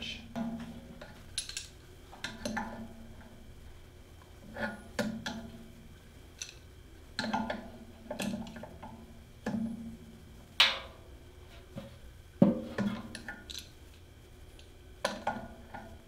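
Irregular metal clinks and knocks of a hand tool against the hub and sheet-metal housing of an air handler's squirrel-cage blower wheel as the wheel's bolt is tightened onto the blower motor shaft. The loudest knocks come about ten and a half and twelve and a half seconds in.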